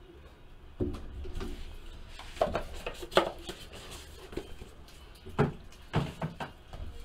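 Handling noise on a tabletop: a hard plastic graded-card slab and cardboard boxes being set down and moved. It comes as a string of sharp clicks and knocks, the loudest about two and a half, three and five and a half seconds in.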